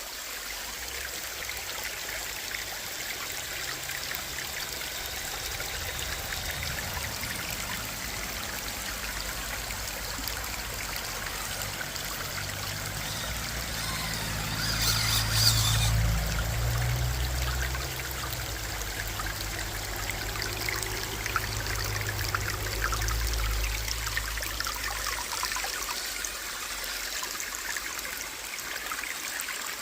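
Stream water trickling and running over rocks, steady throughout, with a louder rush about halfway through.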